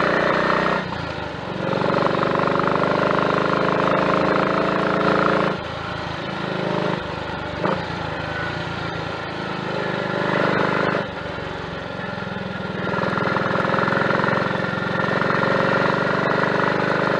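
Triumph Tiger Cub's 200 cc single-cylinder four-stroke engine running on the road. Its note falls away and picks back up three times, about a second in, about five and a half seconds in and about eleven seconds in, with a single sharp click about seven and a half seconds in while it is running quieter.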